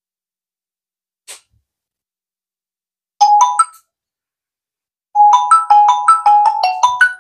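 A bell-like tune played through a Redmi Note 13 Pro+ phone's built-in dual speakers, as a demonstration of its sound quality. A brief phrase of a few notes about three seconds in is followed by a quicker run of notes from about five seconds in. A faint click comes about a second in.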